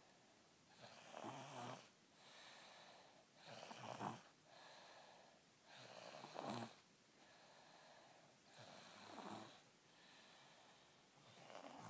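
A sleeper snoring: a snore about every two and a half seconds, five in all, with softer breathing between.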